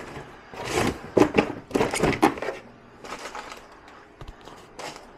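Cardboard boxes and flaps handled: a cluster of scraping, rustling knocks, loudest in the first half, then a few lighter ones.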